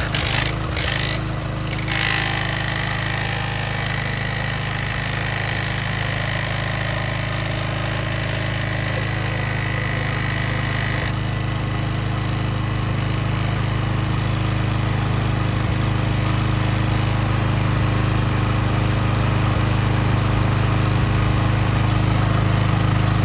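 Small gas engine of a gas pressure washer running steadily just after starting, with no surging, following a repair with a new camshaft and governor. A thin high whine sits over it from about two to eleven seconds in.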